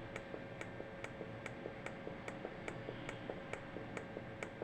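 Steady, even ticking at about two and a half ticks a second over a faint steady hum.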